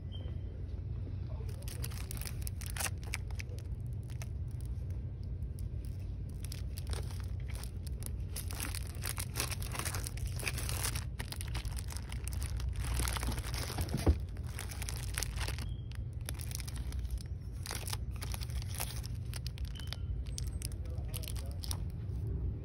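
Plastic-wrapped notebooks and planners crinkling and rustling as a hand sorts through them, over a steady low hum, with one sharp knock a little past the middle.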